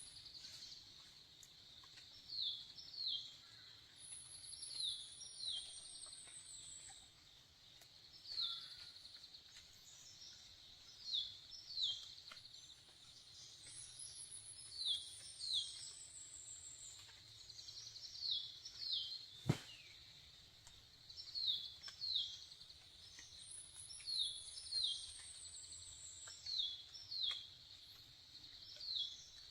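Forest ambience: small birds giving short, high, downward chirps, often in pairs, over a steady high insect drone. About every ten seconds a long, high whistle falls slowly in pitch, and there is one sharp click about two-thirds of the way through.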